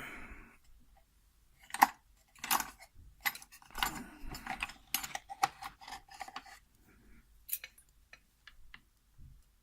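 Small metal tools clinking and rattling, with a sharp clack a little under two seconds in, a busy run of clinks with a faint metallic ring through the middle, and lighter ticks near the end, as a dental pick is fetched from among the lock-picking tools.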